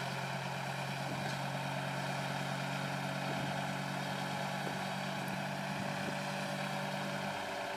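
Heavy diesel engine of earthmoving machinery running steadily. Its note dips briefly near the end and then recovers.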